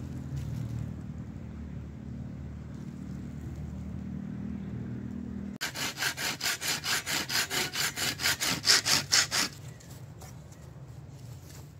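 Small hand saw cutting through a wooden branch, with quick even strokes about six a second. The sawing starts about five and a half seconds in and lasts about four seconds.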